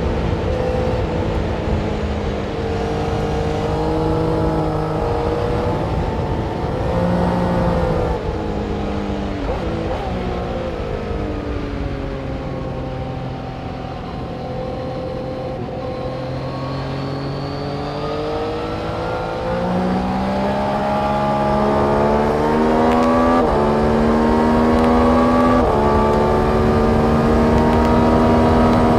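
Race-track vehicle engine running through a corner: the engine note drops as it slows in the middle, then climbs under acceleration with two quick upshifts near the end.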